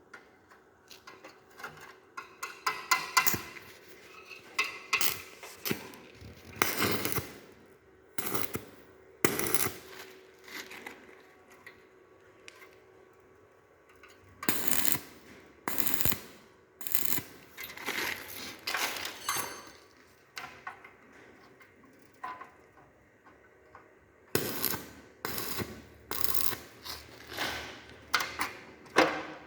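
Arc welding crackling and sputtering in short, irregular bursts of a second or two, with quieter gaps between, as the arc is struck and broken again and again.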